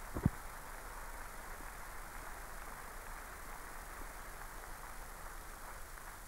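Hushed indoor tennis arena between points: a low, steady crowd murmur under hiss, with one sharp knock about a quarter of a second in.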